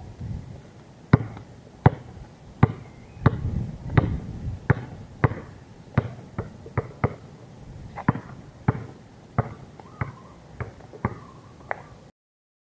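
Basketball being dribbled on an outdoor asphalt court: about eighteen sharp bounces at a steady walking pace, a few coming quicker in the middle. The sound cuts off suddenly just before the end.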